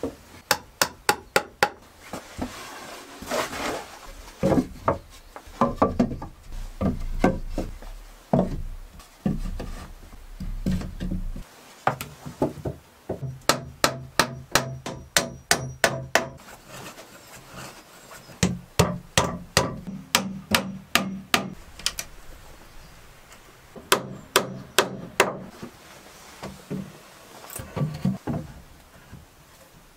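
Hammer blows on wood in quick runs of several strikes, with wood rubbing and scraping between the runs.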